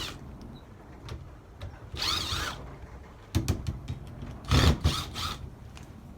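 Power drill or driver run in several short bursts, backing screws out of a sled runner's aluminum base.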